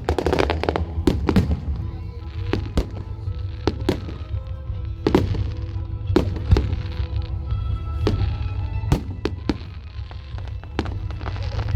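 Fireworks display: shells bursting in sharp bangs at irregular intervals, with a dense crackle in the first second. Music plays underneath, over a constant low rumble.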